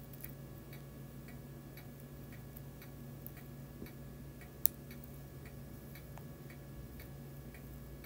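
Faint, steady ticking of a clock, about two ticks a second, over a low steady hum. One sharp click stands out about four and a half seconds in.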